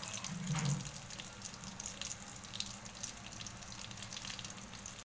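Whole fish frying in hot oil in a pan: a steady sizzle with fine crackling, with a short low sound about half a second in. The sound cuts off suddenly near the end.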